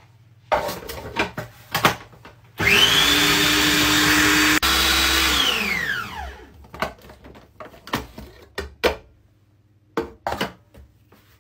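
Food processor pulsing butter and self-raising flour into crumbs: the motor starts with a rising whine, runs for about two seconds, then is switched off and spins down with a falling whine. Plastic clicks and knocks of the bowl lid being fitted come before it, and more come after it when the lid is taken off.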